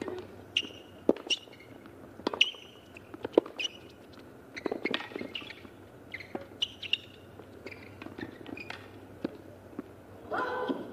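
A tennis rally on a hard court: the ball is struck by the rackets with sharp pops roughly a second apart, with short high squeaks between the shots. A brief voice is heard near the end.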